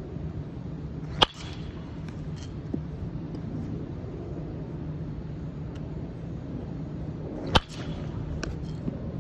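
Two sharp cracks of a baseball bat hitting the ball in batting practice, one about a second in and one near the end, each followed by a brief ring, over a steady low background hum.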